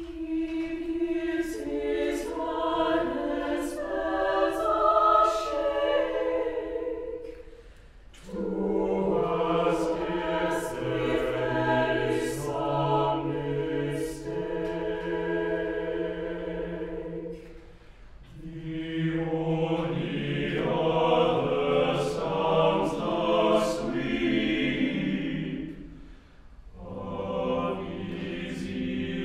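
Mixed SATB chorus singing a cappella in slow, sustained phrases, with three short breaks between them. The first phrase is sung by the higher voices only, and the low voices join from the second phrase on.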